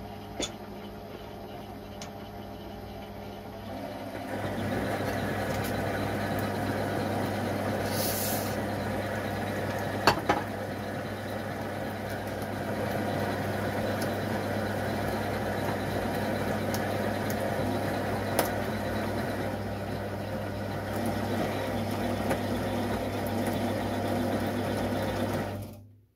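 Metal lathe running with a steady motor hum. About four seconds in, the tool starts a cut along the turbine's main shaft under the lead-screw feed, adding a louder steady cutting noise, with a couple of sharp clicks near the middle. It all stops abruptly near the end.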